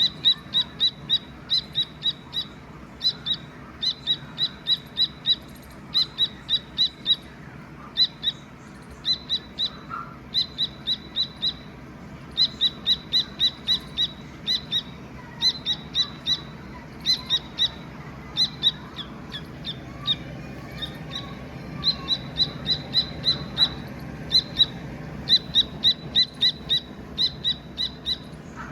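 Dakni teetar chick, a young partridge, chirping: runs of short, high peeping notes, several a second, broken by brief pauses.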